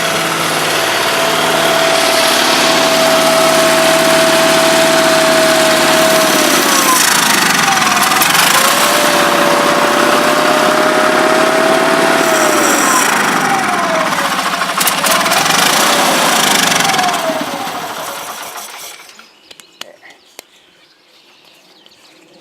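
Small garden tractor engine running at speed, its pitch sagging and recovering twice as it stumbles, then dying out about three-quarters of the way through, leaving only a few faint clicks.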